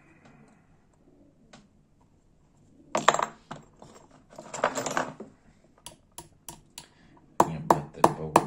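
Small hammer tapping a metal pin in quick light strokes, about three a second, growing louder near the end, plausibly to drive out a gas lighter's refill valve. Before the tapping, small metal tools and parts clatter for a couple of seconds as they are handled.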